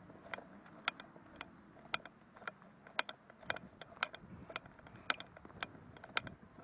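Footsteps at an even walking pace, about two a second, each one a short sharp click.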